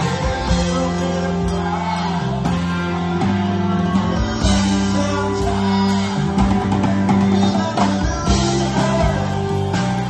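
Live rock band playing: electric guitars over bass and drums with steady cymbal hits, and a male lead vocal sung over them.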